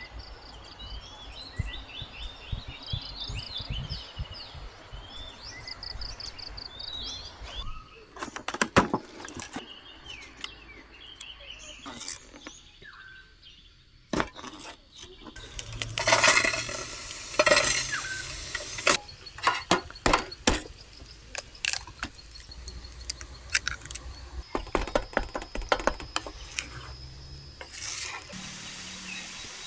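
Clinking and clattering of dishes, pots and utensils, with repeated short knocks and a louder noisy stretch around the middle. High chirps run through the first several seconds.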